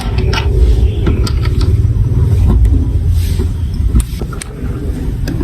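Marbles rolling along plastic building-block marble-run tracks: a steady low rumble with sharp clicks scattered through it as they knock against the pieces. The rumble eases after a louder click about four seconds in.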